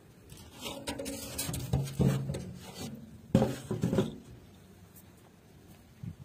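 Rusty metal lid scraped and dragged over the clay rim of a tandoor as it is slid across the opening to close the oven: a grating rasp with a low metallic drone, loudest about two and three and a half seconds in, then dying away.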